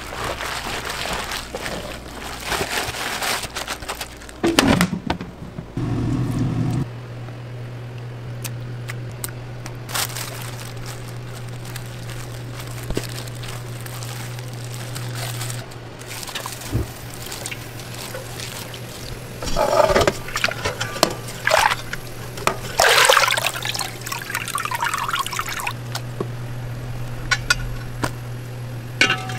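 Hands mixing food in a bowl: irregular wet squishing and rustling, first of shredded cabbage and carrot, then of a wet flour mixture. A steady low hum comes and goes underneath.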